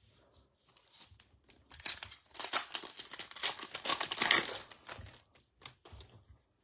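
A foil trading-card pack wrapper being torn open and crinkled by hand, building to its loudest near the middle and dying away into a few faint clicks.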